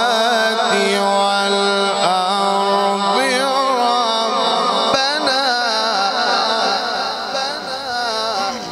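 A male qari reciting the Qur'an in a melodic, drawn-out style, holding one long phrase with quick turns and wavers in pitch. The voice falls away near the end.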